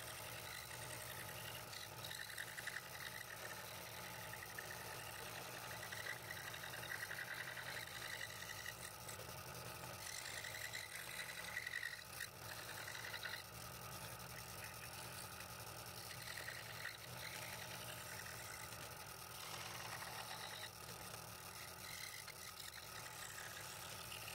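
Scroll saw running steadily, its blade stroking rapidly up and down as it cuts a fretwork pattern in thin wood, with the motor's low hum underneath.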